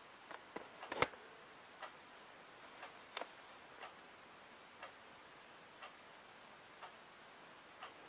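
A clock ticking faintly about once a second, with a few sharper clicks in the first second.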